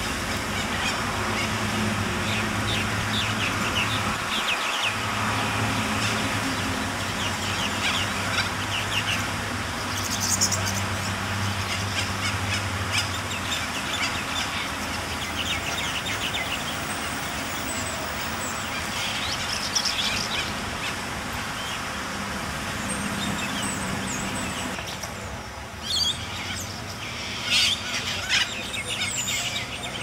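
Western corellas calling with a scatter of short high notes, the loudest calls coming near the end, over a steady low hum.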